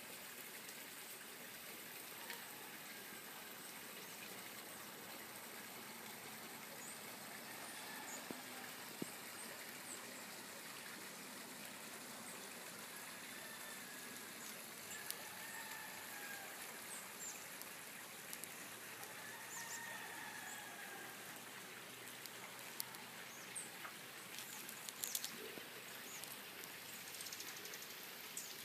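Faint early-morning outdoor ambience: a steady hiss, with a rooster crowing faintly several times and small birds chirping now and then.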